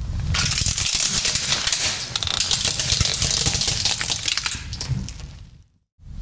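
Car tyre rolling over a hard plastic toy horse on wheels, the plastic cracking and snapping in a dense run of crunches as it breaks apart.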